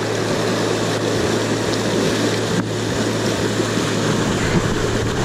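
Rushing whitewater of a mountain creek running high and fast, a steady rush of rapids.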